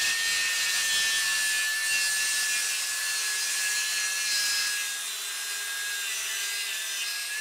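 DeWalt 60V Max Flexvolt 7-1/4-inch cordless circular saw (DCS578) ripping lengthwise through thick pressure-treated timber under load: a steady high motor whine over the hiss of the blade chewing wood. The pitch dips slightly partway through.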